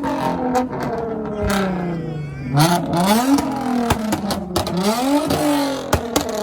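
Car engine being revved in repeated throttle blips, its pitch rising and falling several times with a few sharp cracks in between, and answering the throttle quickly.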